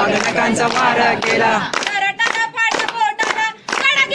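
Women's voices loudly chanting a Marathi heroic ballad (powada) to rhythmic hand-clapping; several voices sing together for the first second or so, then one voice carries on alone.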